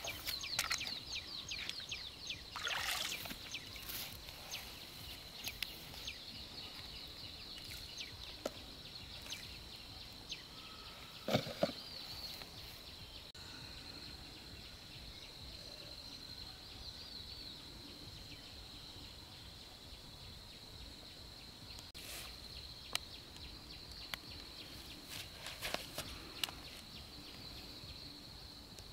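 Outdoor ambience with a steady, high-pitched insect drone, broken by a few brief louder noises; the loudest comes about a third of the way in.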